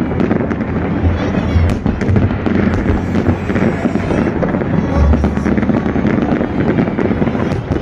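Fireworks display: a dense, continuous barrage of shell bursts and crackling, with deeper booms about a second in and again around five seconds in.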